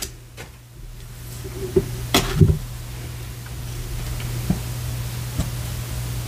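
Tarot cards handled on a desk: a few light taps and clicks, the sharpest about two seconds in, over a steady low hum.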